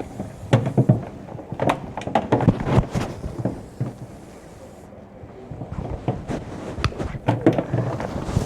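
A run of irregular knocks and clicks, as of things being handled and moved about, with a quieter stretch about halfway through.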